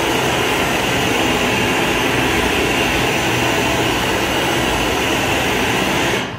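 Glassblowing bench torch burning at a large flame, a loud steady hiss as a glass bubble on a blowpipe is heated in it; the sound cuts off abruptly near the end.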